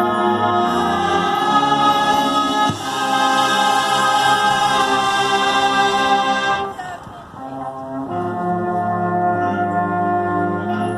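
Marching band brass playing loud held chords. The chord changes about three seconds in; a little past halfway the band cuts off and it goes briefly quieter, then the brass comes back in with another held chord.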